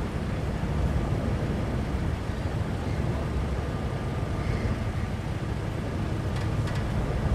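Car ferry's engines running, a steady low rumble heard from the vehicle deck.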